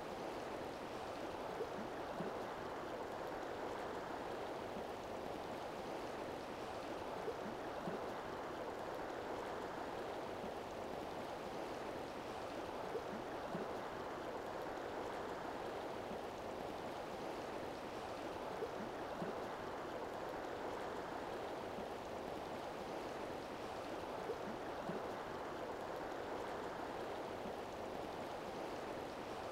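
River water rushing steadily, a constant even flow noise with small gurgles now and then.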